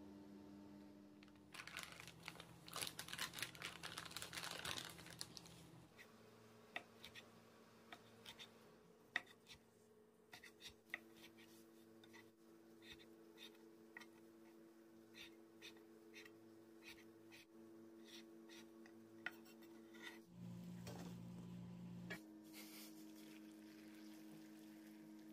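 A few seconds of rustling, then a scattering of sharp knife taps on a wooden cutting board as rolled fish cake is sliced. Near the end comes the hiss of hot water poured over fish-cake strips in a stainless steel mesh strainer. Faint sustained background music plays throughout.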